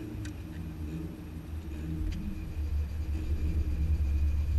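Low rumble of a car engine running, growing louder toward the end, with two faint clicks.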